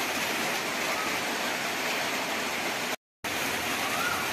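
Steady rain falling on trees and foliage, an even hiss, broken by a split-second dropout about three seconds in.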